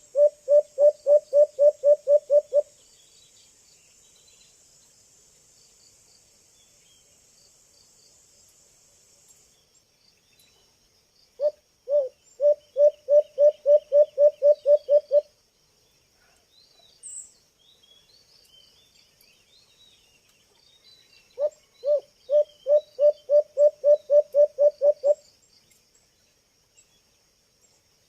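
White-eared brown dove calling: three bouts of low, rapidly repeated hoots, each a run of about fifteen notes lasting three to four seconds, about ten seconds apart. Insects trill faintly and high in the background.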